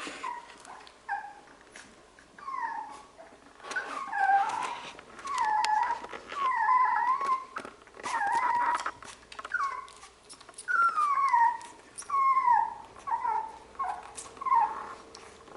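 Labradoodle puppies whining and yelping as they play: a quick string of short, falling cries, busiest from about two seconds in until near the end, with light clicks among them.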